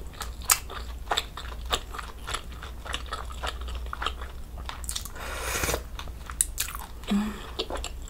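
Close-miked chewing of soft meat from budae jjigae, with many wet mouth clicks, then a slurp of broth from a wooden spoon about five seconds in.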